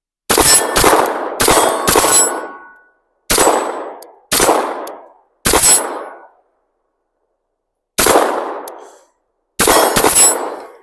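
CZ P-10 9mm pistol firing ten shots at an uneven pace, some in quick pairs and others a second or two apart, each a sharp crack with a short echoing tail. A brief metallic ringing follows the fourth shot.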